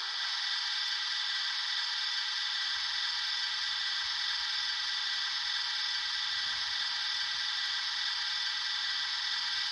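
H0-scale model electric locomotives running along the track: a steady whirring of their motors and wheels on the rails.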